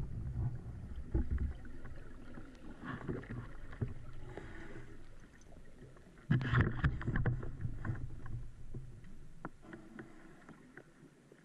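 Underwater camera sound: low rumbling water noise with scattered clicks and knocks. A louder cluster of knocks comes about six seconds in, and the sound dies away near the end.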